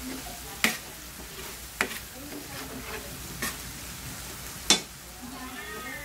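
Chopped pork sizzling in a frying pan as it is sautéed and stirred with a metal ladle. The ladle knocks sharply against the pan four times, loudest about two-thirds of the way through.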